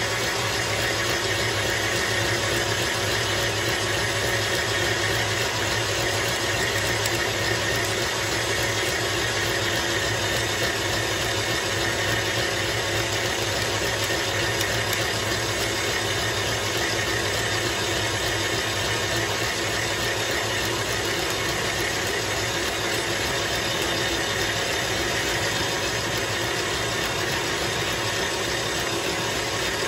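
Krups stand mixer's motor running steadily, its whisk beating boiled icing in a stainless-steel bowl.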